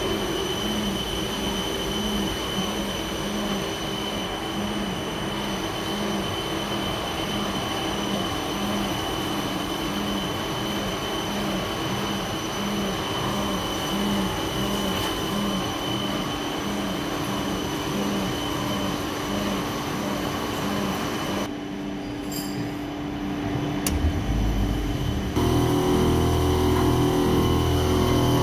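CNC vertical machining centre cutting connecting rods held in a hydraulic fixture, with coolant spraying: steady machining noise with a high whine and a low pulse about every 0.7 seconds. About three-quarters of the way through the high part drops away, and a few seconds later a louder sound with a steady multi-tone hum starts, as the machine moves on to another operation.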